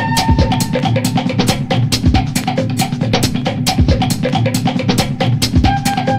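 Background music with a steady drum-kit beat under held notes.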